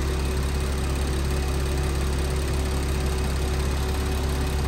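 Car engine idling steadily with its variable-displacement air-conditioning compressor running, a constant low hum with a steady drone above it.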